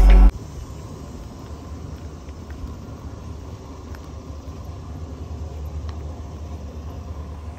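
Background music cuts off abruptly just after the start, leaving a steady low rumble.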